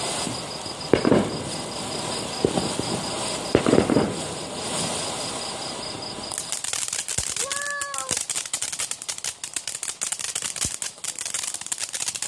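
Pyro Fan ground fountain firework spraying sparks with a steady hiss and a few louder thumps. About halfway in it switches to rapid, dense crackling that runs on as the fountain throws crackling sparks.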